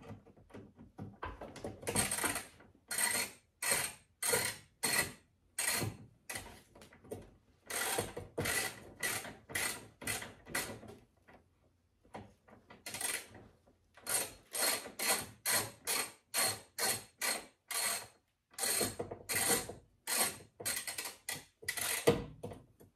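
Hand ratchet wrench turning a headlight mounting bolt: runs of clicking ratchet strokes, about two a second, with short pauses between runs.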